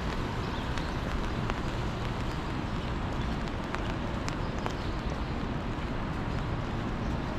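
A steady wash of rain and wet city street noise, with a few faint ticks through it.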